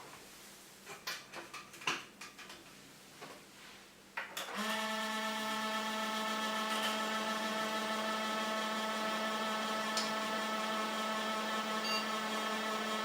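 A few faint clicks and knocks, then about four and a half seconds in an old desktop computer starts running and its cooling fans give a steady droning hum made of several pitches at once. The owner calls it an awful sound and blames the CPU and graphics-card coolers, which he means to cure by oiling them.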